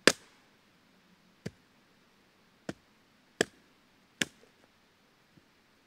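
Husqvarna hatchet splitting a short log on a stump: five sharp chops of the blade into wood, the first the loudest, spaced about a second apart.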